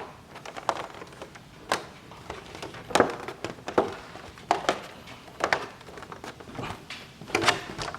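Handling of Pokémon trading cards and their collection-box packaging: irregular clicks and light taps, about one a second, with soft rustling between them.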